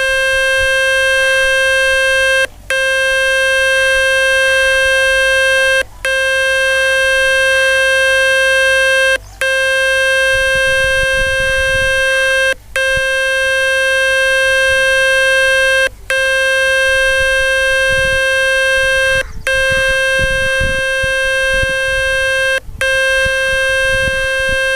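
Speaker-cleaning tone from the Fix My Speaker website, played through a phone's loudspeaker. It is a steady buzzing tone with many overtones, cut by a brief gap about every three seconds. The tone is meant to shake water, dust and dirt out of the speaker to cure low volume.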